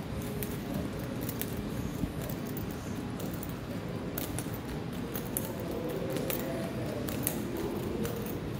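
A steady low rumble with scattered, irregular sharp clicks, the handling and footfall noise of someone walking on a tiled floor while holding the recording phone.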